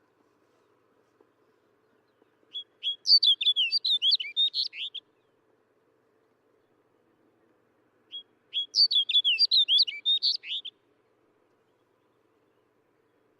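Snow bunting singing: two short song phrases of quick, warbling, high notes, each about two and a half seconds long, the first starting a couple of seconds in and the second about three seconds after the first ends.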